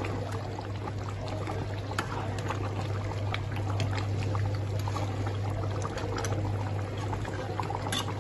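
Meat and bottle-gourd curry bubbling at a simmer in an aluminium pot, stirred with a metal spatula that makes small scrapes and clicks against the pot. A steady low hum runs underneath.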